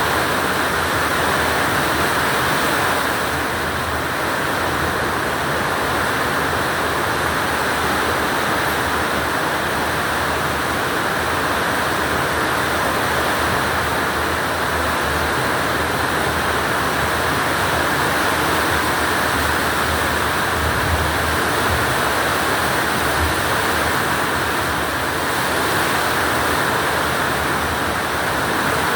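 Very heavy rain pouring down in a loud, steady hiss.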